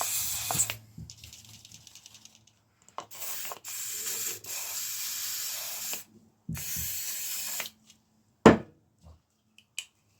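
An aerosol spray can hissing in several short bursts and one longer one, working spray into a bike shifter that has lost its good click. Near the end comes a sharp click, then a couple of lighter clicks.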